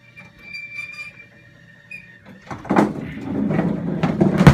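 Bowling ball of a 1964 United Tornado ball bowler rolling down the machine's lane with a loud rumble that starts about halfway through, ending in a sharp loud crash as it hits the pins near the end, a strike.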